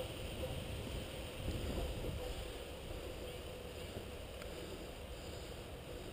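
Steady low rumble of wind on the microphone over outdoor background noise, with a faint steady hum and a single faint tick about four and a half seconds in.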